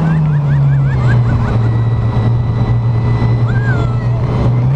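Speedboat's big-block V8 engine, a 496, running at speed on the water: a steady drone that eases a little lower about a second in, over a rush of wind and water.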